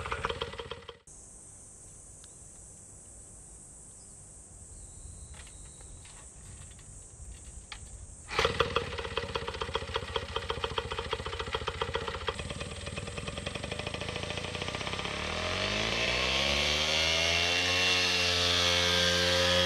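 Honda Dream D's small two-stroke single-cylinder motorcycle engine, heard running for about a second before a quiet stretch with only faint background hiss and a few faint clicks. About eight seconds in it is abruptly heard again, idling with a fast pulsing beat. Near the end its pitch rises and then holds steady as the motorcycle pulls away.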